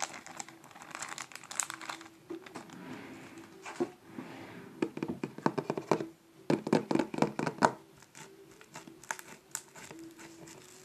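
Slime mixed with artificial snow (cut plastic flakes) being squeezed, pressed and poked by hand, giving a crackle of many small clicks and pops, densest in two bursts past the middle.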